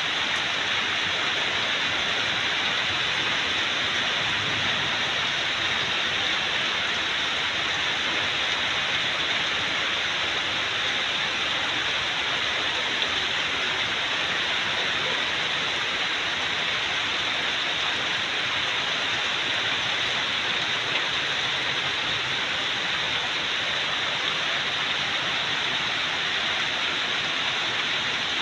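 Heavy storm rain pouring steadily onto trees and garden plants, an even rushing hiss that does not let up.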